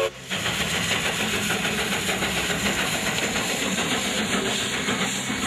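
Steam locomotive passing close by: a steady hiss of steam mixed with the rolling noise of the train.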